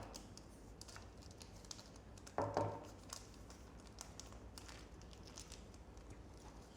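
Faint crinkling and rustling of a small plastic packet being handled and opened, with scattered light clicks and one brief louder rustle about two and a half seconds in.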